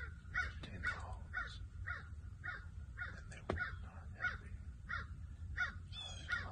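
Crows cawing over and over in a steady run, nearly two caws a second. A single sharp click sounds about three and a half seconds in.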